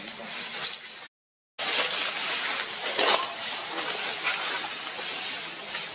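Outdoor tree-canopy ambience: a steady hiss with scattered rustles and light clicks, broken by a half-second dropout to silence about a second in.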